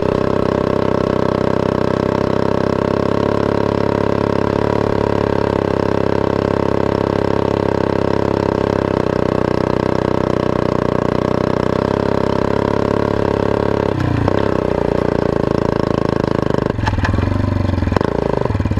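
Yamaha Badger 80 ATV's small single-cylinder four-stroke engine running steadily under way, heard close up from a camera mounted on the machine. Near the end the engine note wavers and shifts as the throttle changes.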